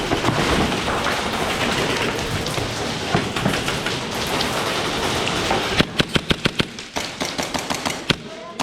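Dense crackling clatter of airsoft gunfire and BBs striking hard surfaces, then a quick burst of about ten shots in a second, and a single shot near the end.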